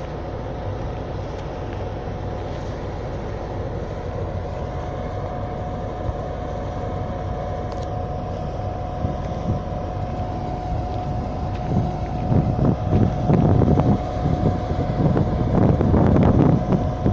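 MÁV M62 diesel locomotive, with its Kolomna two-stroke V12 engine, idling steadily at a standstill with a constant high whine over its rumble. In the last few seconds, wind buffets the microphone in loud, uneven gusts.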